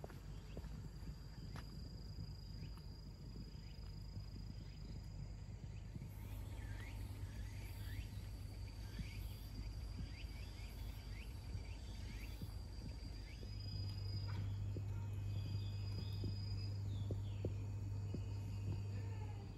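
Insects calling in woodland: a steady high drone, with a run of repeated falling chirps through the middle. Under it runs a low steady hum that grows louder about two-thirds of the way through.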